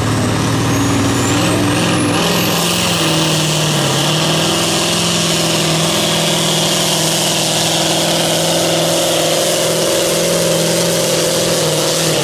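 Diesel engine of a pulling tractor running flat out under heavy load as it drags a weight-transfer sled, sending out thick black smoke. A thin high whine rises sharply in pitch over the first few seconds.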